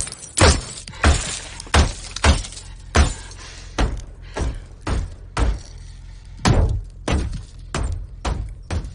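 Bullets striking the armoured windows of an Aston Martin DB5, heard from inside the car: a run of sharp impacts about two a second, each with a short crackle of glass, loudest in the first few seconds.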